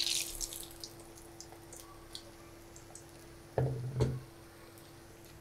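Egg and onion pakoras sizzling and crackling in hot oil in a frying pan, with a burst of hissing at the start as one is laid into the oil. A faint steady hum runs underneath, and two short low thumps come about three and a half seconds in.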